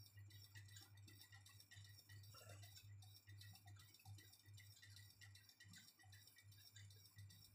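Near silence: faint room tone with a low hum that pulses a few times a second and soft scattered ticks.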